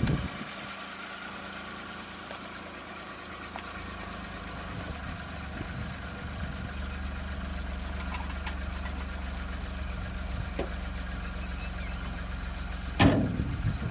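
Car engine idling steadily after starting. Near the end there is a sudden loud knock.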